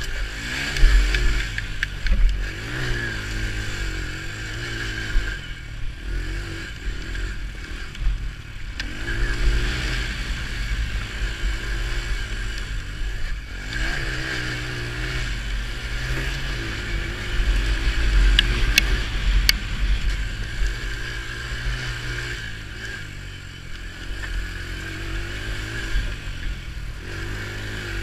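Quad bike engine revving up and easing off over and over as it is ridden along a rough dirt track, with a couple of brief sharp clicks about two-thirds of the way through.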